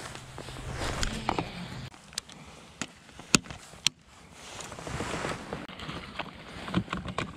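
Handling noise from a baitcasting rod and reel and kayak gear: several sharp clicks and knocks, with a rustling haze of wind and water. A steady low hum underneath stops about two seconds in.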